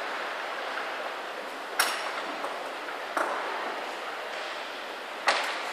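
Three sharp metallic clinks a second or two apart, the first and last the loudest, typical of climbing carabiners knocking, over the steady background noise of a large indoor climbing hall.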